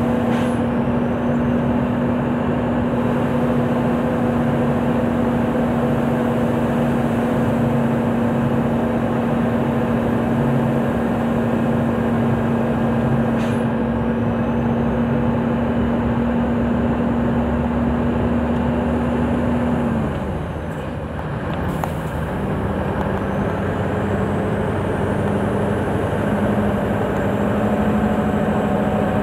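Scania 164L 580's V8 diesel engine running steadily, heard from inside the cab. About twenty seconds in, the engine note breaks off and the sound dips for a couple of seconds, then comes back at a lower pitch and slowly rises.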